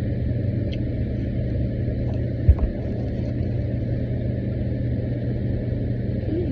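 A steady low rumble with a constant hum, and a single thump about two and a half seconds in.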